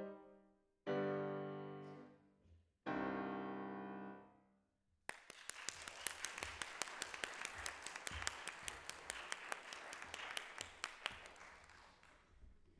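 August Förster grand piano playing the closing chords of a piece: two chords struck about two seconds apart, each left to ring away. Then an audience starts applauding suddenly about five seconds in, and the clapping thins out near the end.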